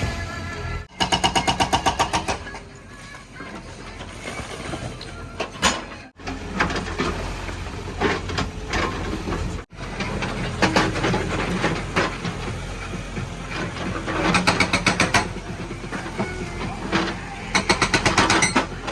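JCB 3DX backhoe loader's diesel engine running, with several bursts of rapid, even hammering from a hydraulic breaker, about a dozen blows a second, near the start, later on and near the end. The sound drops out sharply three times.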